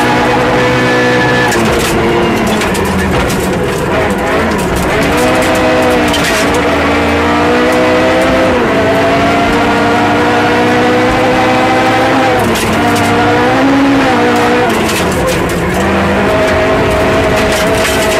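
Rally car engine heard from inside the cabin at full stage pace, its note climbing and then dropping several times as the driver shifts and lifts. Sharp clicks and rattles of gravel striking the car come through over the engine.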